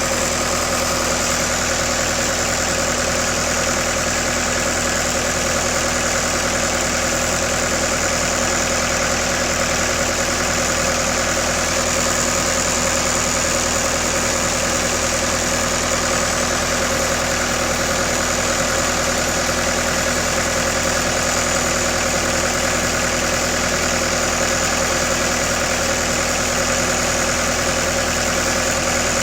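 Engine of a Lincoln Electric SAM 400 engine-driven welder running steadily at idle, with an even hum and no change in speed.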